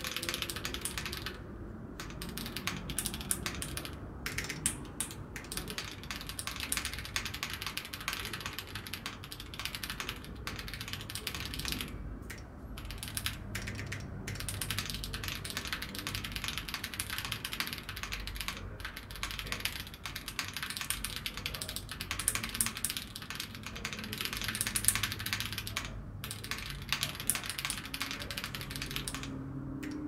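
Typing on a CIY GAS67 gasket-mount 65% mechanical keyboard, stock and built without the middle gasket, with MMD Cream V3 switches and ABS Cherry-profile keycaps: a fast, steady run of key clacks with a few brief pauses.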